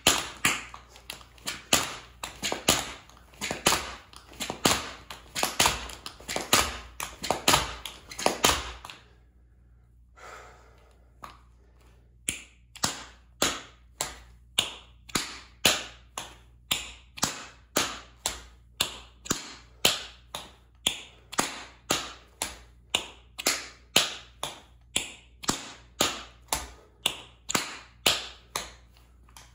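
Metal-plated tap shoes striking a concrete floor: about nine seconds of quick flurries of taps, then after a short pause an even beat of single sharp taps, nearly two a second.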